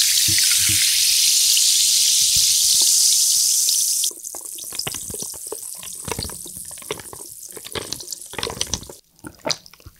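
Plain sparkling water poured from a bottle into a glass mug over ice and passion fruit syrup, giving a loud fizzing hiss that stops about four seconds in. The carbonated drink then keeps crackling and fizzing among the ice. Near the end a muddler stirs the ice, clinking against the glass.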